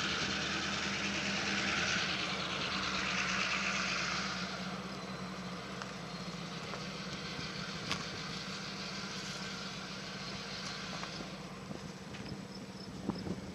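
A steady engine hum, with a rushing noise that fades away about four seconds in and a single sharp click near the middle.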